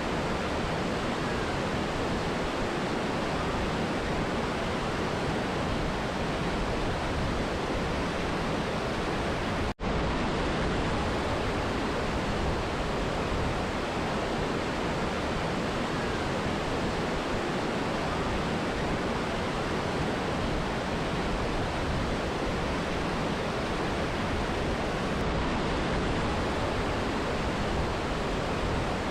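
Steady rushing of a mountain river and waterfall, with a split-second gap about ten seconds in.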